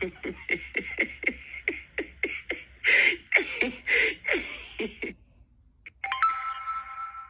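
A woman laughing hard in rapid, breathy bursts, about three a second, stopping about five seconds in. About six seconds in, a steady electronic tone from the live-streaming app sounds as a guest call connects.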